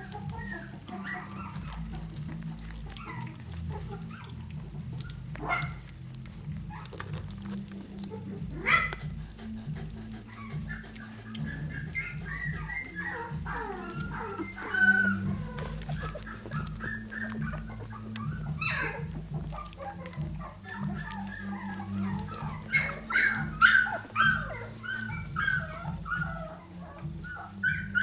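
Young Finnish Lapphund puppies squeaking and whimpering in many short, high calls, more of them in the second half. There are a few soft knocks and a low rumble beneath.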